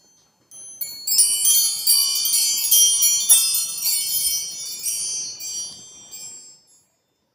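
Small metal-tube chakra wind chime ringing as its tubes strike one another: many overlapping high, clear tones. It starts about half a second in and dies away near the end.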